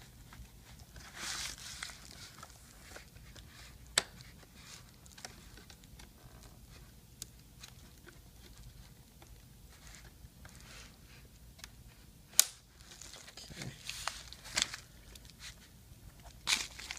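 Plastic clips at the bottom of an HP Pavilion 15 laptop's screen being worked loose by hand: scraping and handling noises, with a few sharp clicks as clips pop free, about four seconds in, around twelve seconds and near the end.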